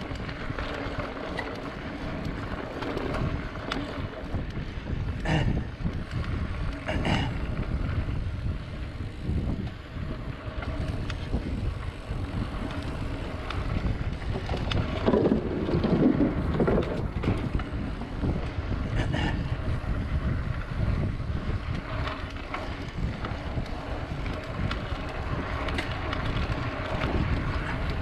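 Wind rushing over the microphone of a mountain bike's ride camera on a dirt trail, over steady rolling tyre and drivetrain noise, with a few sharp knocks from bumps about 5, 7 and 19 seconds in.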